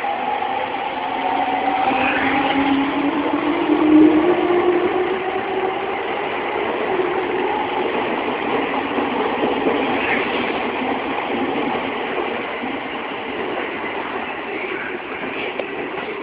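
A 209 series 500-subseries electric multiple unit pulling away and accelerating: its traction motors whine in two tones that rise in pitch over the first few seconds, then give way to a steady rumble of wheels on rails as the cars run past, slowly fading near the end.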